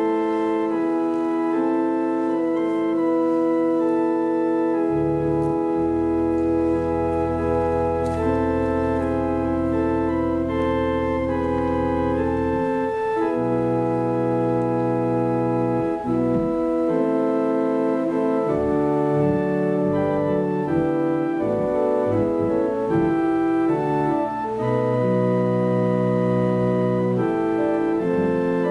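Church organ playing slow, sustained chords, with deep bass notes coming in about five seconds in and returning several times.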